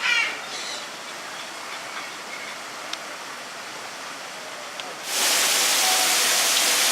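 A bird gives a loud, short call right at the start, over quiet background ambience. About five seconds in, a loud, steady rushing noise cuts in suddenly and holds.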